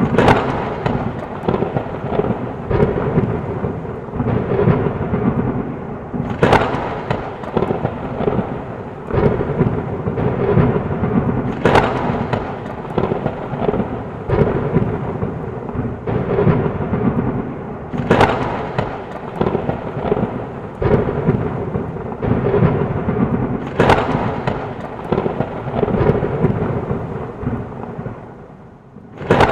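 Steady heavy rain with sharp thunderclaps breaking through about every six seconds. The loudness dips briefly near the end before another crack.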